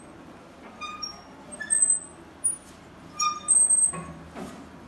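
Small birds chirping: short, high-pitched chirps repeating irregularly, with a soft rustle about four seconds in.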